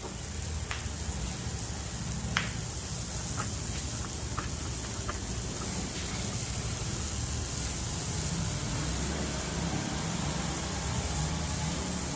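Pancit bihon broth simmering in a wok, a steady bubbling with a few light ticks in the first few seconds.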